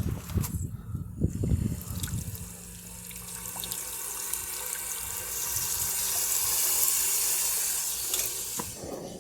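Water running hard from a hose, a steady hiss that swells and then tails off near the end, after a couple of seconds of knocks and handling of the hose fittings.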